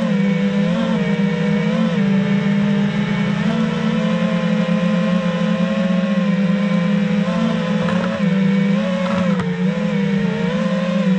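FPV quadcopter's motors and propellers whining steadily, the pitch wavering up and down as the throttle changes.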